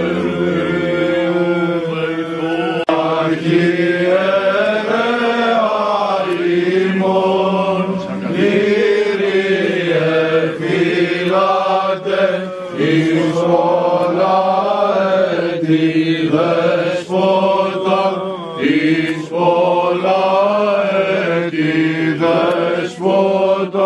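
Men's voices chanting a Greek Orthodox Byzantine hymn in unison: a flowing, melismatic melody sung over a steady held low drone note (the ison).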